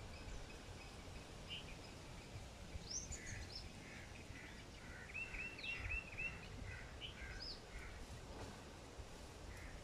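Small birds calling with scattered short chirps and whistles over steady low background noise, including a quick run of five short, evenly repeated notes about five seconds in.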